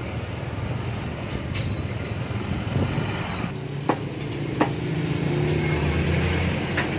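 Steady low rumble of street traffic and running vehicle engines, with a few sharp clicks and knocks.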